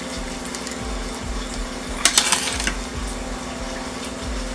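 Cookware clinking: a short clatter of metal on metal about two seconds in, as pasta is worked from a skillet over a steel pot, over a steady low hum.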